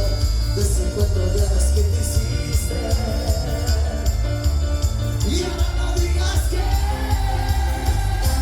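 Live band music with a heavy, steady bass beat and a singing voice.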